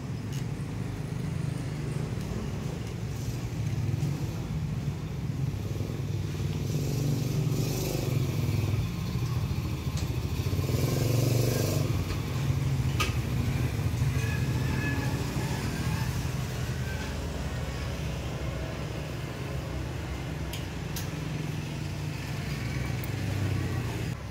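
A motor vehicle's engine running steadily, a low even rumble.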